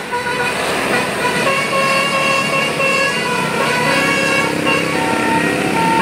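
A bus's Basuri telolet musical air horn playing a melody: a continuous run of short horn notes that jump from pitch to pitch every fraction of a second.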